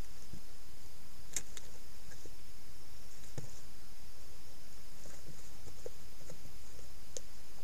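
Steady hiss from a trail camera's microphone, with a few faint, short clicks and rustles scattered through as an eastern quoll tugs and chews at a roadkill carcass.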